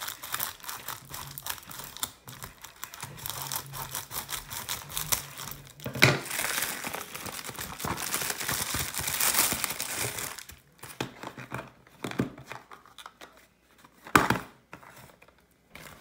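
Packaging of a boxed speed cube crinkling and tearing as it is opened by hand, with a sharp snap about six seconds in and another near the end.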